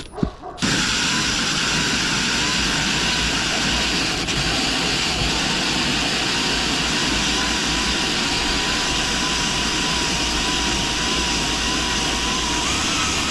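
Power drill driving a large hole saw through fibre-cement (Hardie board) siding: a steady, grinding cut with a faint, slightly wavering motor whine, starting about half a second in.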